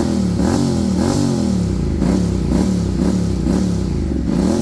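Honda X-ADV 750's parallel-twin engine revved in quick repeated throttle blips, about two a second, each rising and falling in pitch. It is heard through an IXrace dual-canister carbon slip-on exhaust with its dB killer fitted.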